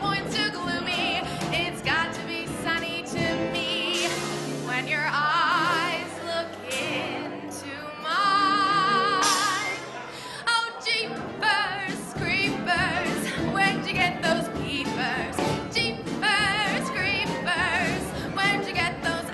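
A live big band playing 1940s-style swing music with a steady beat. Around the middle, long wavering held notes stand out.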